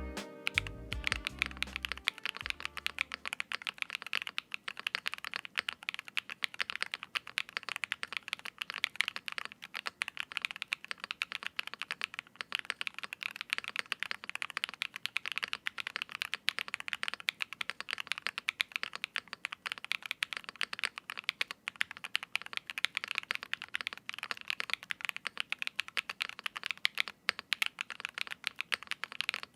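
Fast, continuous typing on a Class 60 mechanical keyboard with KFA Pink Robin switches, an aluminium plate with plate foam and PBT keycaps: a dense run of keystroke clicks. Guitar music fades out over the first couple of seconds.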